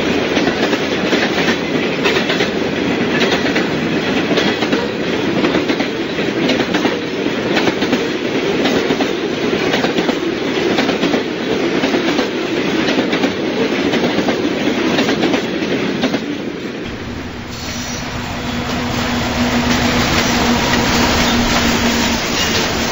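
HO-scale model freight train rolling along the track, its wheels making a rapid clickety-clack over the rail joints. About seventeen seconds in the sound changes to a lower rumble with a steady hum, as a model diesel locomotive passes.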